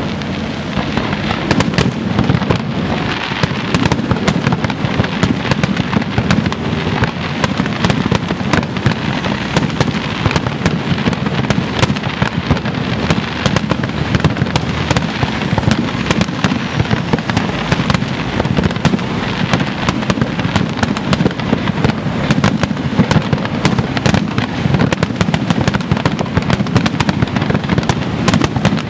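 Aerial firework shells bursting in a continuous barrage: dense, overlapping bangs and crackle with no pause.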